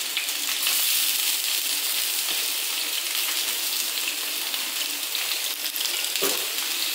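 Langoustines and king prawns sizzling steadily in hot olive oil in a paella pan as they are seared.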